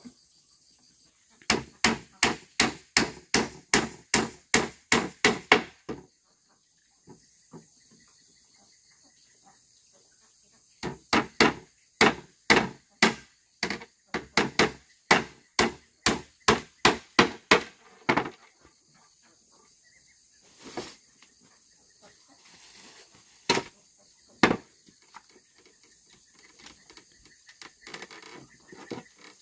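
Hammer blows on wood: two runs of quick, even strikes at about three a second, then a few scattered single strikes near the end. A steady high insect chirring runs underneath.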